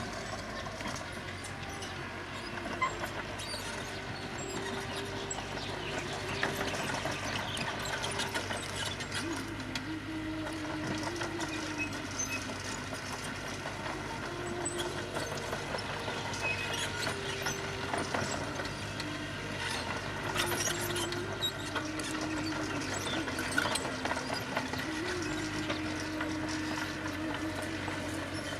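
Diesel engine of road construction machinery running steadily, its pitch stepping up and down now and then, with scattered small clicks and knocks.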